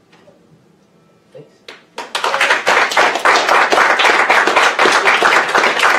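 Audience applauding, starting suddenly about two seconds in after a short hush and carrying on as many overlapping claps.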